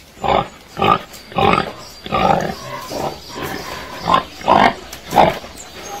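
Domestic pig grunting in a series of short grunts, about one every half second to second, with a brief pause partway through.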